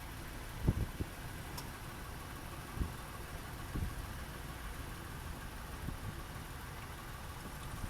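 A steady low engine rumble, with a few dull knocks about a second, three seconds and four seconds in.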